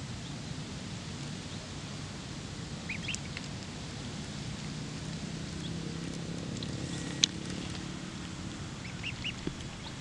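Duckling peeping in short high calls, a few about three seconds in and again near the end, over steady low background noise. A single sharp click a little after seven seconds is the loudest sound.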